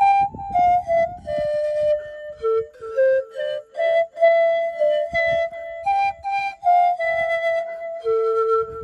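Panpipes playing a slow melody, a run of separate breathy notes, some short and some held for about a second.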